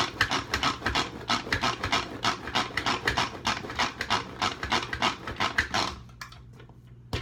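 Pull-cord manual food processor chopping tomatoes: the cord is pulled rapidly over and over, about four strokes a second, stopping about six seconds in.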